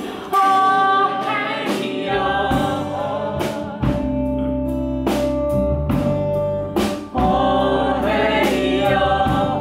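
A live band performing a pop song: a woman singing long held notes over acoustic guitar, electric bass and drums, with regular drum and cymbal hits. The low bass comes in fully a few seconds in.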